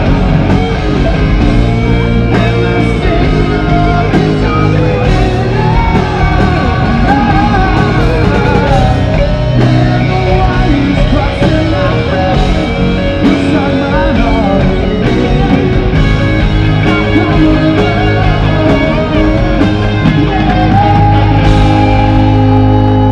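Live rock band playing loudly: distorted electric guitars and drums under a male lead vocal, with a long held note near the end.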